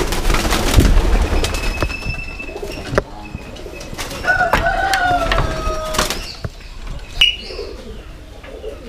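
Domestic pigeons cooing in a wire-mesh pigeon loft, with a brief flutter of wings near the end. Rustling and a couple of knocks come from someone moving through the enclosure during the first few seconds.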